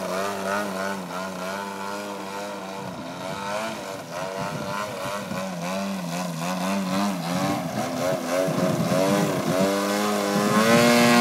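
Radio-controlled aerobatic model airplane's engine and propeller, the pitch rising and falling again and again as it hovers nose-up and manoeuvres low. Near the end it climbs to a steady, higher, louder note.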